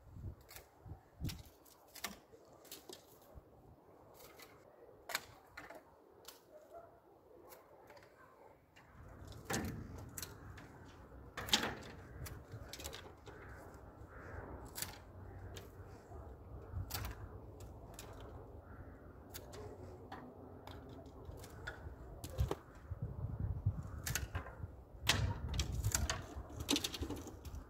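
Hand pruning shears snipping the shoots of a globe catalpa: a run of short, sharp clicks and snaps at irregular intervals, roughly one a second. A low rumble comes in about nine seconds in and grows louder near the end.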